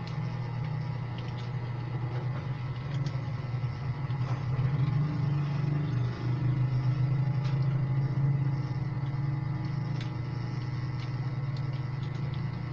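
A steady low rumble, like a running engine, that swells about four seconds in and eases off toward the end, with a few faint, scattered clicks.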